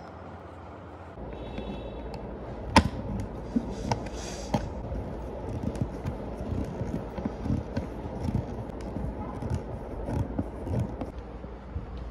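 Irregular clicks and knocks of a screwdriver and hands working on a suitcase pull handle's plastic mounts, the loudest a single sharp click about three seconds in. A steady low hum runs behind them from about a second in.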